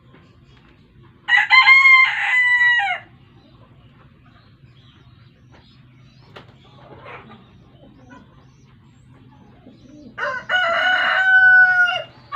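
A rooster crowing twice, each crow about two seconds long and falling in pitch at the end, the second crow coming about eight seconds after the first.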